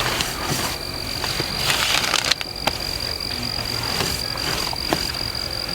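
Dusk chorus of insects and frogs, with a steady high-pitched insect trill and a few faint knocks.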